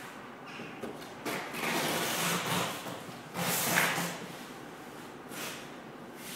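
Large cardboard box scraping as it is pushed and shifted on a wooden pallet: a long rasping stretch starting just over a second in, then a shorter one about three and a half seconds in.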